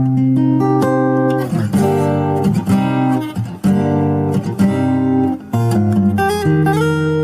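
Solo acoustic guitar fingerstyle playing, a sequence of plucked and strummed chords with a melody on top and a few notes bent or slid in pitch.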